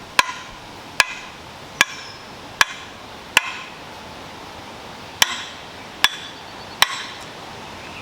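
Hammer striking the butt end of a wooden axe handle to drive a tight-fitting double-bit axe head up onto it: eight sharp knocks, five about a second apart, a short pause, then three more.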